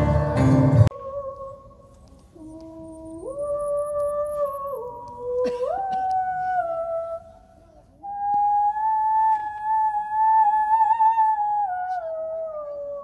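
Music stops abruptly about a second in. Then a single voice hums or sings slow wordless held notes that step up and down in pitch. After a short pause it holds a long wavering note that glides down near the end.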